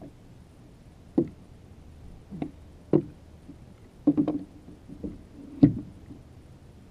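Irregular knocks and thumps on a fishing kayak's hull, six or so, the loudest a little over five seconds in, while a hooked speckled trout is lifted in by the line.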